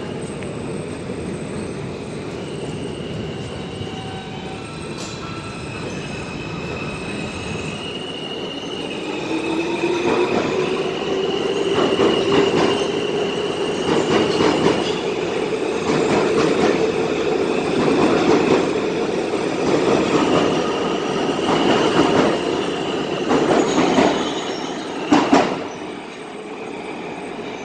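New York City subway train pulling out of a station: its wheels squeal in thin high tones while a motor whine rises as it gathers speed from about ten seconds in. The wheels clack over rail joints roughly every two seconds, the loudest clack near the end.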